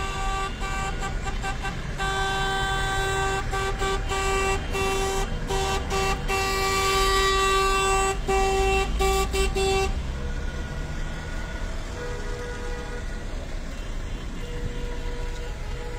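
Car horns honking from passing traffic: a string of short and long blasts, including one long held blast about seven seconds in, stopping about ten seconds in. After that a fainter, higher-pitched horn sounds in stretches, over the low rumble of cars going by.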